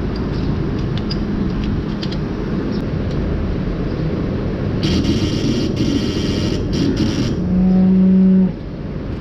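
Steady low mechanical rumble of milking-barn machinery, with a stretch of broken hissing about five seconds in. Near the end a loud buzz sounds for about a second and then cuts off suddenly.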